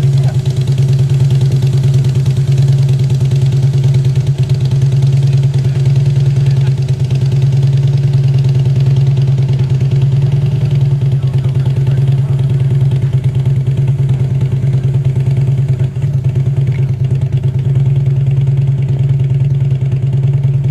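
An engine idling steadily and low, holding the same speed throughout.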